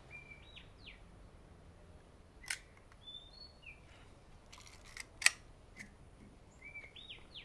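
Kodak Retina IIS's leaf shutter being cocked and fired at 1/60 s: a click about two and a half seconds in, then small clicks and a sharp, loud shutter click about five seconds in. Short bird chirps are heard in the background three times.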